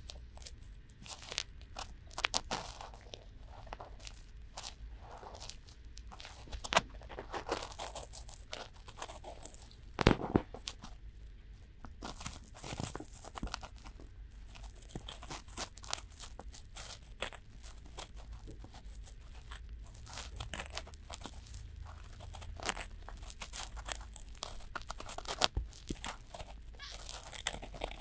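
Cotton swabs rubbing and scraping in both ears of a binaural microphone at once: close, irregular crackling and scratching with sharper, louder scrapes now and then, the loudest about ten seconds in.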